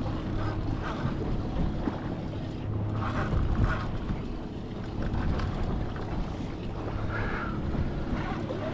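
Wind buffeting the microphone over water sounds around an anchored boat at sea, with a steady low hum underneath.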